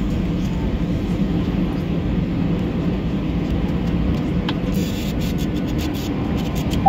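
Steady low cabin rumble of an Airbus A320-214 decelerating on the runway during its landing rollout: engine noise and runway roll heard from a rear window seat.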